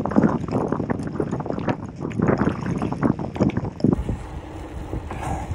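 Gravel bike rolling fast over a gravel road: tyre crunch and an irregular clattering rattle from the bike, which the rider partly puts down to hub cones in his front and rear wheels working loose. About four seconds in it changes abruptly to a steady wind rush on the microphone.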